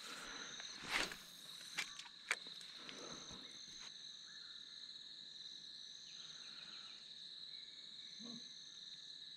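Faint, steady high-pitched insect chorus with short chirps repeating over it. A few brief knocks and rustles come in the first two or three seconds, the loudest about a second in.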